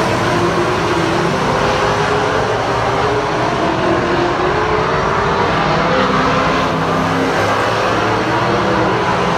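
A pack of stock cars racing on a paved oval, several engines running hard at once, their pitches rising and falling against one another in a steady, loud roar of engine and tyre noise.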